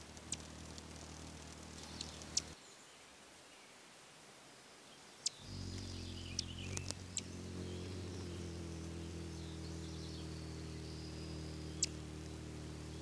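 Faint outdoor ambience at a Rufous hummingbird nest: a few sharp, high chip notes and soft high twittering, busiest around six to seven seconds in as the adult hovers in to feed the chicks, over a steady low hum. The background cuts out about two and a half seconds in and comes back a few seconds later.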